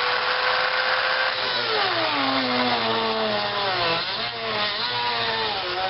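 Small handheld rotary tool with a cutter disc whining as it cuts into the potted casing of a CDI unit. The motor's pitch drops gradually from about a second and a half in, then climbs back up near the four-second mark.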